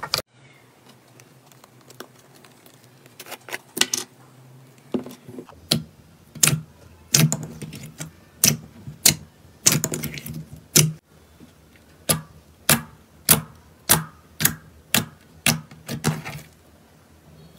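Slime being pressed and worked with the fingers, giving sharp clicking pops. A few scattered pops come first, then a steady run of about two a second from about five seconds in that stops shortly before the end.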